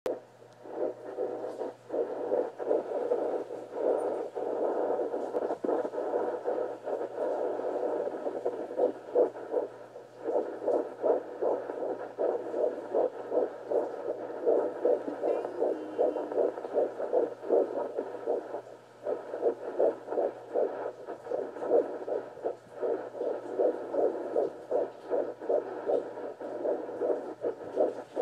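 Fetal heartbeat picked up by an ultrasound Doppler monitor: a fast, even run of whooshing beats, roughly two to three a second, over a steady low hum. The beats fade out briefly a few times.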